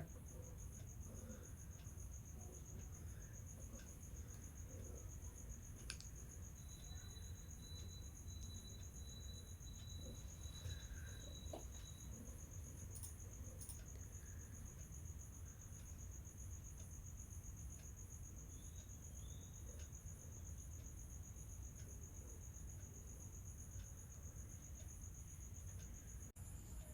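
Cricket chirping in a steady, fast, evenly pulsing trill, over a low background hum.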